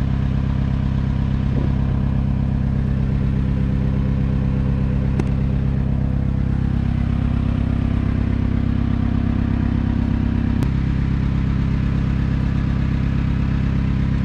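An engine running steadily at a constant speed. Its note changes for a few seconds past the middle and snaps back with a sharp click.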